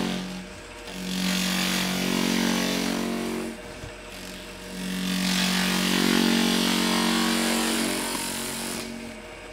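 Wood lathe spinning a packing-foam pad on a 3/8-inch dowel while a sharp skew chisel cuts into the foam: two passes of a few seconds each, a steady buzzing hum with a hiss, easing off between them and near the end.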